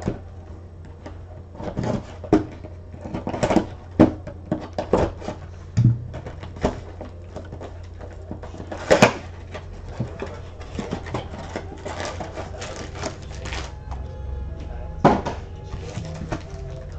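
Handling of a Panini Prizm football trading card box: irregular knocks, taps and clicks of cardboard and packs on the table, with crinkling of wrapping near the end. A steady low hum runs underneath.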